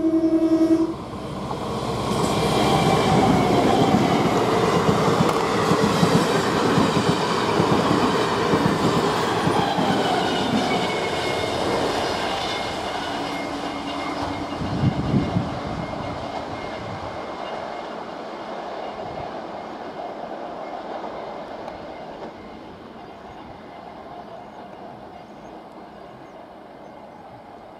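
DEMU passenger trains running at speed: a horn blast cuts off just under a second in, then the loud rush of a train passing close with wheels clattering over rail joints, slowly fading. About halfway through a steadier, lower horn note sounds for a few seconds, and the rest is the quieter running of a train further off.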